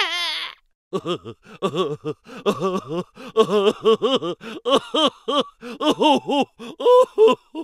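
A person's voice making a rapid series of short pitched bursts, each rising and falling in pitch, several a second, in groups with brief pauses: a comic non-speech vocal sound effect.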